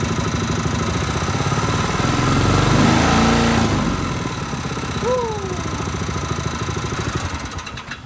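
Predator 212 single-cylinder four-stroke engine on a mud motor running with its propeller spinning in the air. It revs up about two seconds in, settles back, and dies away near the end as it shuts down. It sounds a little off, not as calm as a healthy engine, which the owner puts down to the flywheel fan slightly rubbing against the frame.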